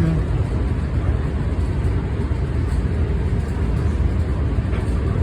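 Steady rumble and rush of a moving commuter train, heard from inside the passenger car.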